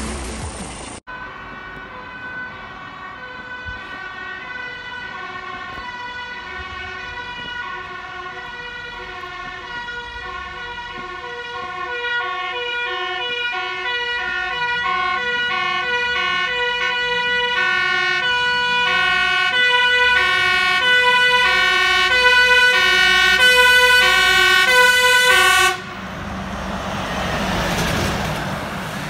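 Fire engine's two-tone siren alternating between a high and a low note, growing steadily louder as the truck approaches. It cuts off suddenly near the end, leaving the truck's engine and tyres as it passes close by.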